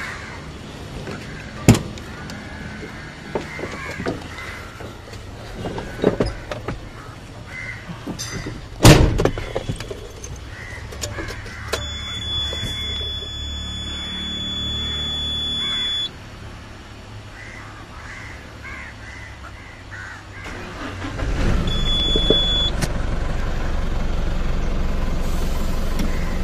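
Knocks and a loud door slam as someone climbs into the cab of an Eicher Pro 1080XPT truck, then a few seconds of low engine sound under a high warning beep that stop together. About 21 seconds in the truck's diesel engine starts and settles into a steady idle.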